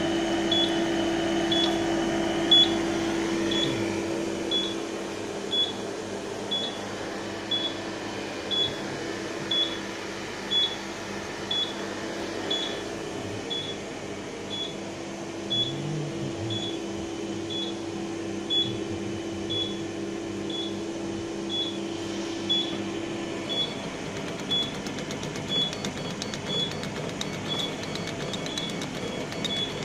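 Short high beep repeating about once a second over the steady hum of an OMTech 40W CO2 laser cutter and its cooling setup. The hum drops away about three-quarters of the way through while the beeping goes on.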